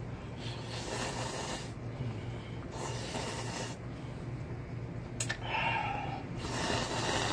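A man slurping hot ramyeon noodles off chopsticks, three long slurps of about a second each.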